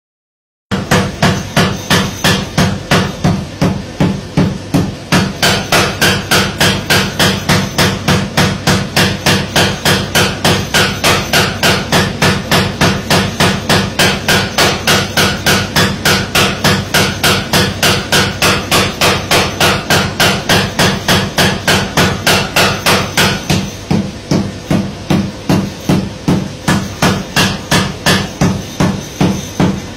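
Mechanical forging power hammer pounding in a steady rhythm of about three blows a second, starting just under a second in.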